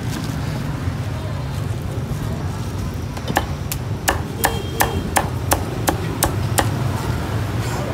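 Meat cleaver chopping roast pork on a chopping block: about ten quick, sharp chops, roughly three a second, starting a few seconds in.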